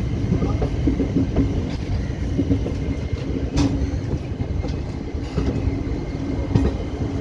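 Indian Railways passenger coach rolling along the track, heard from its open doorway: a steady low rumble of wheels on rail with a hum and scattered wheel clacks, one sharper clack about three and a half seconds in.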